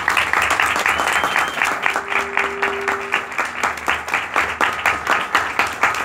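Audience applauding steadily with dense clapping, right after a piece of music ends.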